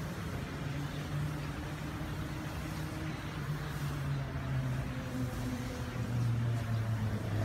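Street traffic ambience: a motor vehicle's engine hum over a steady wash of road noise, the hum slowly dropping in pitch.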